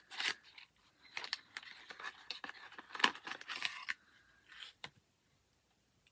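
Rustling, scraping and tearing of cosmetic packaging being opened by hand, in irregular strokes, with a couple of short clicks near five seconds in.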